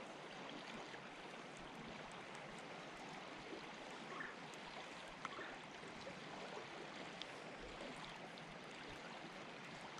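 Faint, steady rush of a flowing creek's current.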